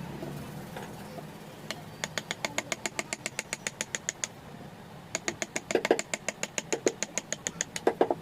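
A rapid series of sharp taps, about six a second, in two runs with a short pause between them.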